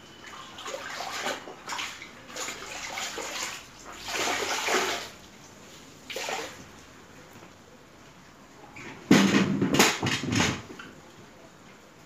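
A cleaning cloth being swished and rinsed in a bucket of water and wrung out, water sloshing and splashing back into the bucket in uneven bursts, the loudest splashing coming about nine to ten and a half seconds in.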